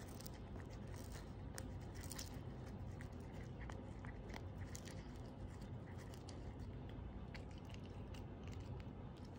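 Siamese cat biting and chewing a dried capelin, with irregular small crunches of the dry fish, thickest in the first couple of seconds.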